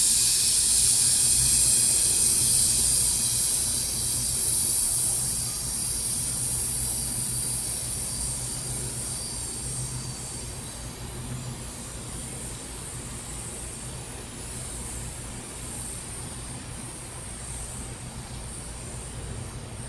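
Lithium-ion battery cells venting in a hot toaster oven: a loud gas hiss that fades steadily over about ten seconds to a faint hiss. A steady low hum runs underneath.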